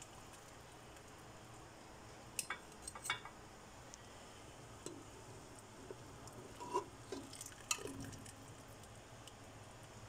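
Metal kitchenware clinking and tapping: a stainless steel mesh strainer and cooking pot being handled. Short clinks come in clusters about two to three seconds in and again around seven to eight seconds in, over a faint steady hum.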